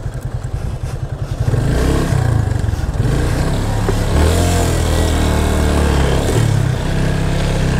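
Yamaha FZ25 motorcycle's single-cylinder engine running at low speed, picking up and getting louder about a second and a half in as the bike moves up against a stalled car to push it.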